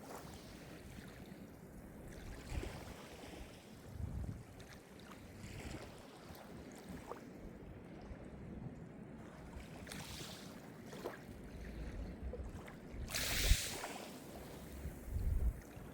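Calm Mediterranean sea surf: small waves washing in and breaking on the shore in irregular swells, the loudest wash about thirteen seconds in.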